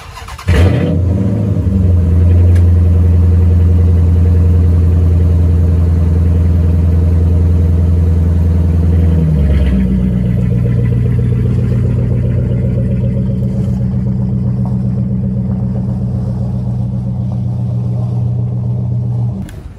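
A Dodge Charger's engine starts about half a second in and runs loudly and steadily. About nine and a half seconds in its note changes as the car drives off, and it slowly fades.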